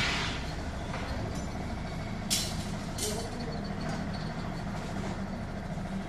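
Steel reinforcing rods (rebar) being handled and laid on dirt ground: a scraping swish at the start, then two short sharp metallic clanks a little after two and three seconds in, over a steady low hum.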